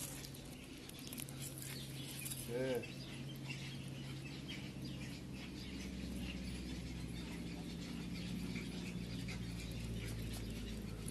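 A kitten lapping milk from a plate: a quick, irregular run of faint tongue clicks.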